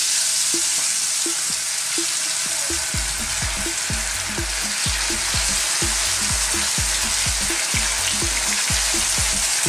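Coated fish pieces frying in hot oil in a frying pan: a loud, steady sizzle and crackle just after they go in.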